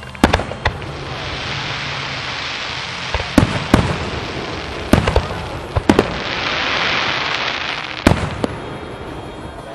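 Aerial firework shells bursting: about nine sharp bangs, several in quick pairs, with a hiss between them.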